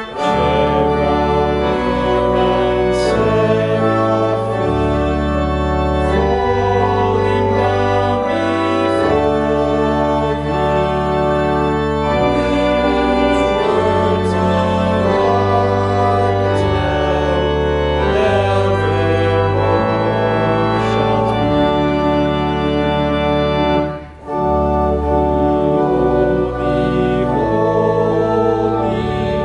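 Church pipe organ playing sustained chords over a deep pedal bass, the chords changing about once a second, with a brief break about 24 seconds in.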